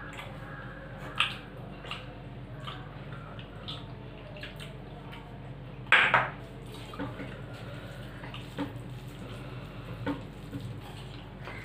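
Fingers mixing rice and curry on stainless steel plates, with scattered small taps and clicks against the metal dishes and one louder knock of dishware about six seconds in.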